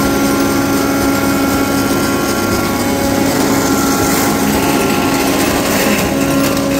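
Multipurpose woodworking machine with a chain mortiser attachment running steadily, a constant motor-and-belt hum. From about four to six seconds in, the chain mortiser is levered into the wood and a brighter cutting noise joins the hum.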